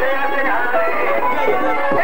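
Live Punjabi folk music from a stage band, a plucked string instrument carrying the melody without a break.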